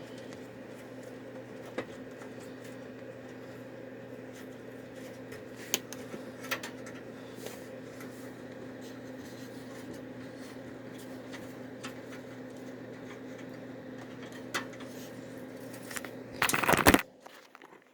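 Steady low hum, with a few light clicks and taps as small parts and cables are handled, and a loud rustling burst near the end, after which the hum cuts out.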